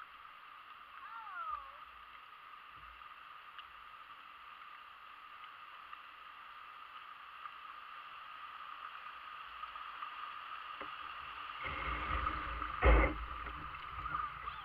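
Creek water rushing and gurgling around a kayak's hull as it floats through a shallow riffle, growing louder toward the end. About 13 s in there is a single loud knock or splash against the kayak.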